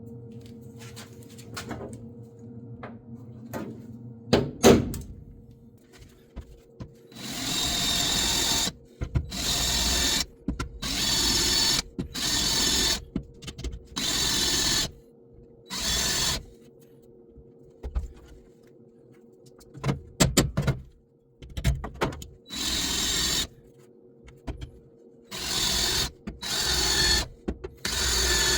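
Electric drill driving a spot weld cutter into the sheet-metal floor pan of a 1967 Ford Bronco, drilling out the spot welds in a series of about ten short bursts of a second or two each. A few sharp knocks come before the drilling and again midway through.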